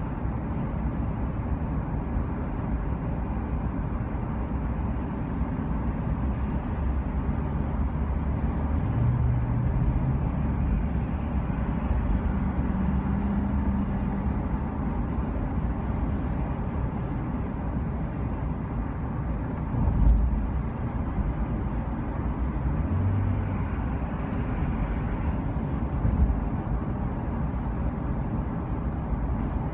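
Steady low rumble of a vehicle driving, with a brief thump about twenty seconds in and another about six seconds later.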